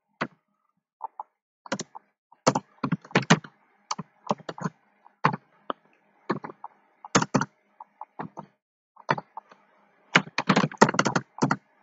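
Computer keyboard being typed on: irregular single keystrokes with short pauses between them, then a quick run of keystrokes near the end.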